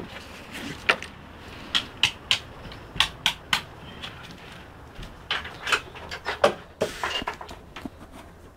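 Irregular sharp knocks and clicks of someone moving about inside a wooden bungalow, such as footsteps on the board floor and handling of wooden fittings.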